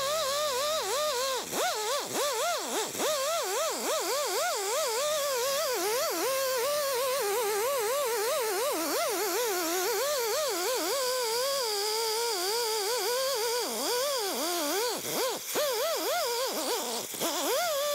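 Small rotary sander with a cut-down sanding disc whining steadily as it blends a welded sheet-metal seam, its pitch wavering up and down as it works against the metal, with a couple of brief dips near the end.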